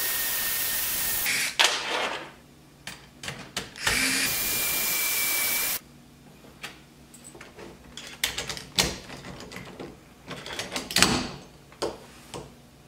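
Cordless drill/driver whirring steadily in two runs, about a second at first and then about two seconds a few seconds later, backing out the door knob's two screws. Light clicks and knocks of the loosened knob and lock parts being handled follow.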